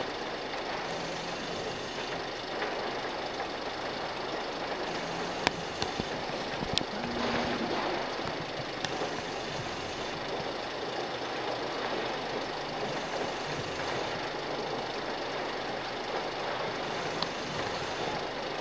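Steady drone of engines running while mobile cranes unload a fishing boat's catch at the quay, with a few sharp knocks, two of them close together about a third of the way in.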